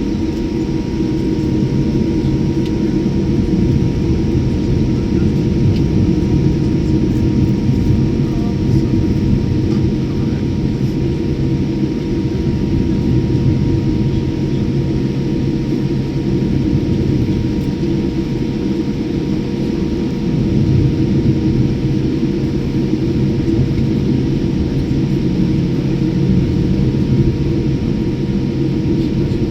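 Steady, loud low vehicle rumble with a constant droning hum, unchanging throughout.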